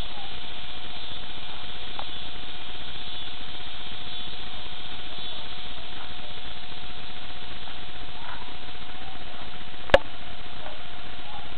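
Steady hiss with a faint constant whine underneath, and one sharp click about ten seconds in.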